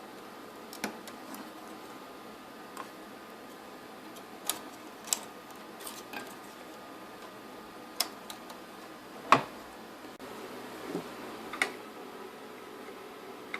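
Scattered sharp clicks and taps of a screwdriver and small metal and plastic parts being handled on a car sat-nav unit while its front-panel screws are taken out, unevenly spaced, with one louder knock past the middle.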